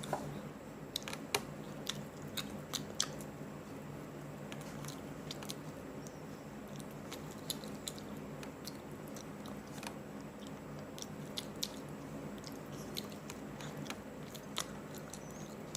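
A person chewing and biting into hot and spicy chicken close to the microphone, with irregular sharp crunches and wet mouth clicks over a steady low hum.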